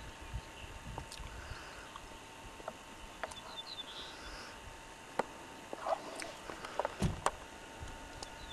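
Quiet open-air ambience with scattered clicks and a few knocks, and a quick run of short, high bird chirps about three and a half seconds in. A faint steady tone runs underneath.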